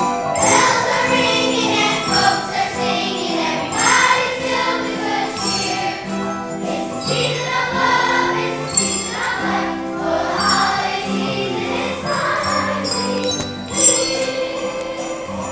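Children's choir singing a Christmas song to instrumental accompaniment.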